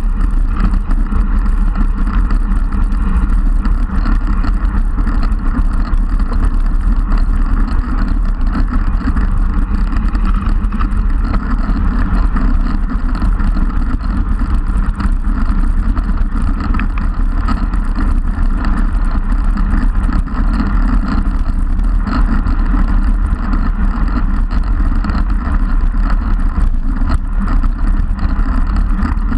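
Steady rumble of wind rushing over the microphone of a camera mounted on a road bike moving at speed.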